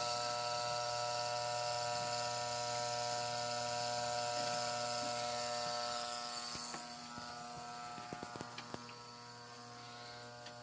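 1945 Marx tinplate toy electric train running on its track: a steady electric buzz with a rattling hiss. The sound drops off about seven seconds in, and a few light clicks follow near the end.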